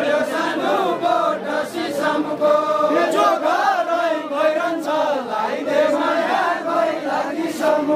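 A group of men singing a Deuda folk song together, the call-and-answer sung dance of far-western Nepal, with no instruments heard.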